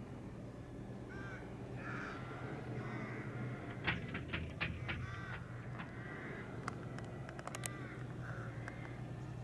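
A flock of birds calling over and over with short, harsh cries, the loudest in the middle. Under them runs the steady low hum of a tractor engine, and a few sharp clicks come after the middle.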